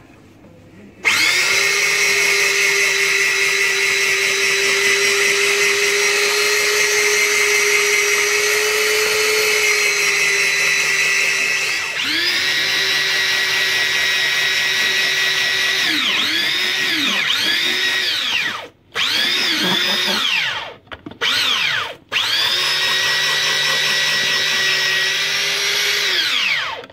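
Electric rotary drum grater's motor running with a steady whine while carrots are shredded through its drum. It starts about a second in. About two-thirds of the way through, the motor is stopped and restarted in several short pulses, its pitch falling and rising each time, then it runs steadily again until it stops just before the end.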